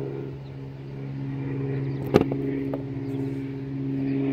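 A motor running steadily with an even low hum. A sharp click about two seconds in, and a fainter one half a second later.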